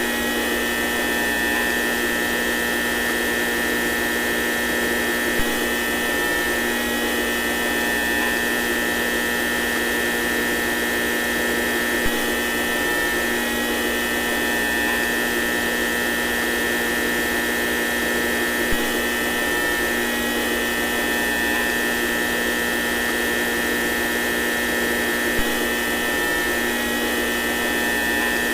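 Steady electrical hum and buzz of lights, with a high whine above it. A slight tick recurs about every six to seven seconds.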